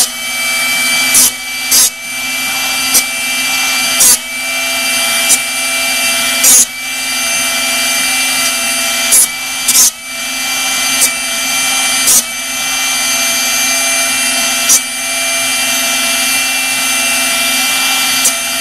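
Drill Doctor 350X drill bit sharpener's motor running steadily with a whine. About a dozen short, loud grinding bursts come at uneven intervals as the chucked drill bit is turned against the diamond grinding wheel.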